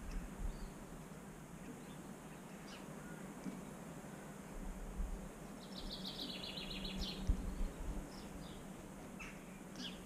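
Small garden songbirds calling: scattered short high chirps and, about halfway through, a rapid high trill of repeated notes lasting about a second and a half. Under them is a steady background hiss with a few low thumps, the loudest just after the trill.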